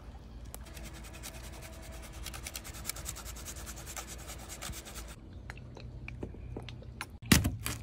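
Hard cheese being grated on a flat rasp grater: a quick, even run of scraping strokes lasting about four and a half seconds. A sharp knock near the end is the loudest sound.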